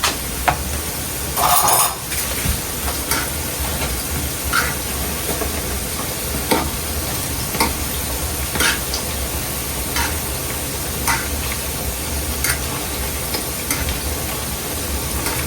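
Fry dumplings frying in hot oil: a steady sizzle with scattered crackling pops, and one louder burst about a second and a half in.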